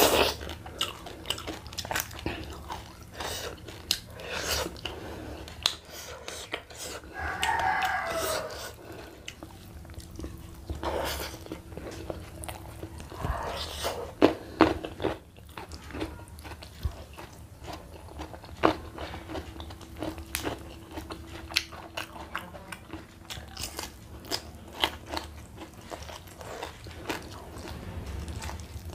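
Close-miked chewing and crunching with wet mouth sounds, as fried fish and rice are eaten by hand. A brief wavering call sounds about seven seconds in.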